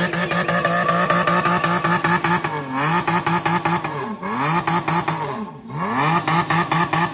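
Pickup truck engine revving hard as its wheel spins in soft sand, the revs dipping and climbing back three times.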